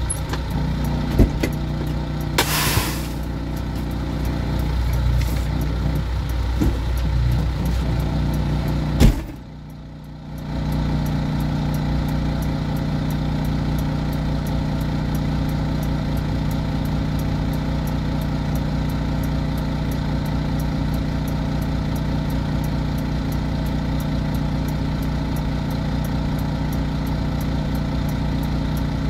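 Semi truck's diesel engine idling steadily, heard from inside the cab. A short burst of hiss comes about two and a half seconds in, and a sharp click at about nine seconds is followed by a brief quieter stretch before the steady idle returns.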